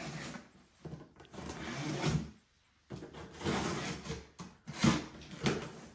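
A blade slitting the packing tape on a cardboard box, heard as several scraping strokes with the cardboard rustling and scuffing under the hands.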